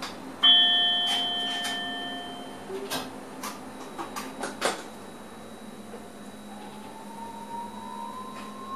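A single bell-like chime sounds in the electric train's cab, ringing with several pitches at once and fading over about two seconds. Several sharp clicks follow. Near the end, a faint whine rises slowly in pitch over steady cab noise.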